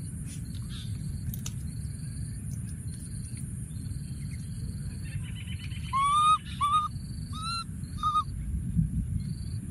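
A baby macaque giving four short, high calls in quick succession starting about six seconds in, each rising and then levelling off. Underneath run a steady high insect drone, short repeated insect chirps and a low rumbling noise.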